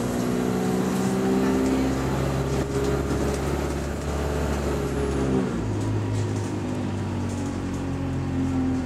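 Bus engine running under way, heard from inside the passenger saloon, a steady humming note over low rumble; about five seconds in the tone shifts to a different pitch.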